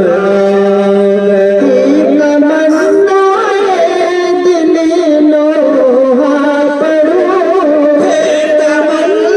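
Men singing a Muharram noha, a mourning lament, in long held notes that waver and slide between pitches.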